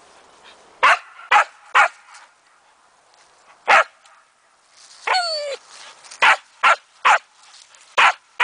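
Samoyed barking: about nine short, sharp barks in quick clusters of two and three, with one drawn-out whining cry whose pitch falls away about five seconds in.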